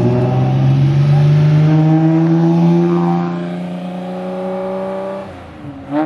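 Ferrari Testarossa's flat-12 engine accelerating hard past the camera, its pitch climbing steadily for about five seconds. It then drops away as the car pulls off, with a short rising rev near the end.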